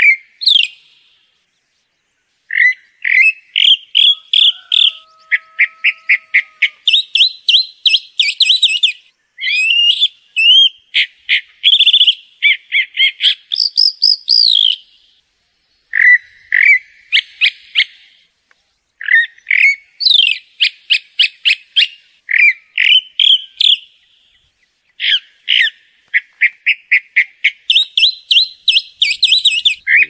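Chalk-browed mockingbird (sabiá-do-campo) singing: long phrases of varied notes, many given as quick repeated runs, broken by a few short pauses.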